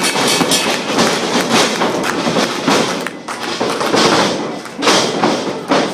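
Repeated heavy thuds of wrestlers' bodies hitting the ring mat, about one a second, over a steady background of crowd noise.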